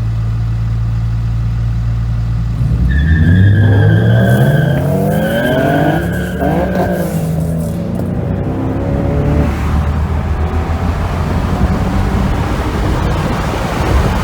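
Nissan 300ZX's naturally aspirated V6 running steadily, then accelerating hard from about three seconds in, the revs climbing twice with a gear change between them, with a steady high squeal during the pull. After that it settles into a steady run with road noise.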